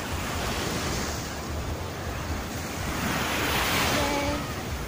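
Small waves washing onto a sandy beach, with wind buffeting the microphone as a low rumble. The wash of the surf swells a little about three and a half seconds in.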